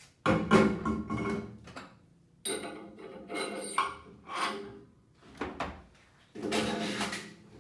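Steel-wheeled tire being mounted on a wheel balancer's shaft: a string of metal clunks and scrapes as the rim goes over the shaft and is worked into place, the first about a third of a second in and a longer scrape near the end.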